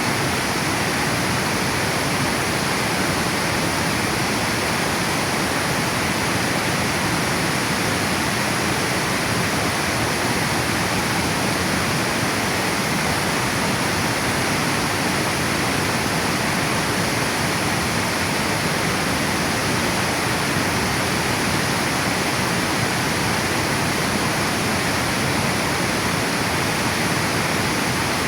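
River water spilling over a dam weir, a steady, unbroken rushing.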